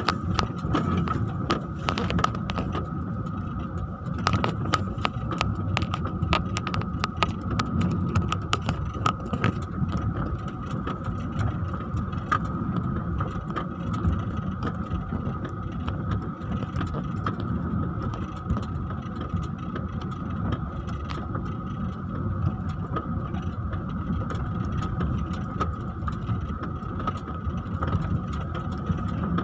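Vehicle running over a rough dirt and sand shore trail, heard from inside the cabin: a steady engine and tyre rumble with a thin high whine, and frequent clicks and rattles as it jolts over the uneven ground, most of them in the first half.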